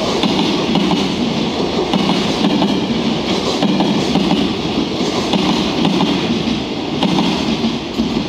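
Container wagons of a long freight train rolling through a station, with a continuous rumble and a clatter of wheels over the rail joints. The sound eases a little near the end as the last wagon passes.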